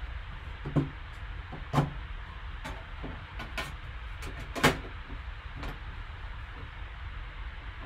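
Hands handling a sealed box of trading cards: a few short knocks and scrapes, the sharpest about a second, two seconds and nearly five seconds in, over a steady low hum.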